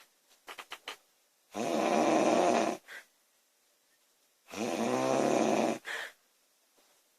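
A woman snoring loudly: two long snores about three seconds apart, each followed by a brief shorter sound, with a few soft clicks before the first.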